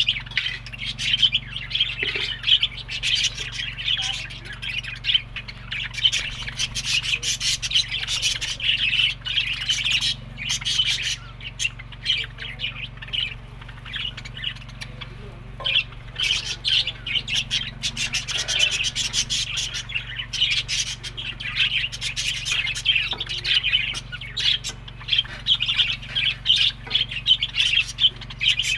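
A flock of budgerigars chattering and chirping without pause, many short overlapping calls with an occasional squawk.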